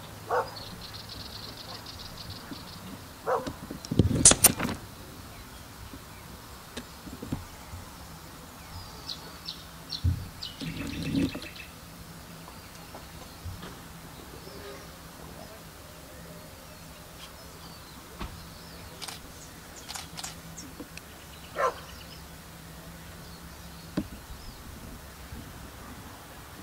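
A dog barking a few short times, with scattered bird calls, over a faint steady low hum. A louder short sound comes about four seconds in.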